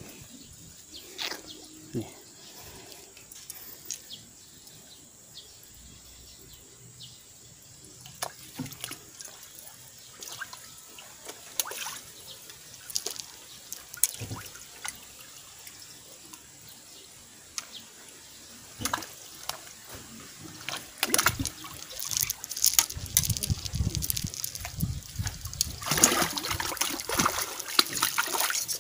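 Catfish splashing at the surface of a pond around a floating butterfly bait: scattered small splashes and drips at first, then more and more, building to loud, continuous thrashing and churning of the water over the last several seconds as a fish takes the bait.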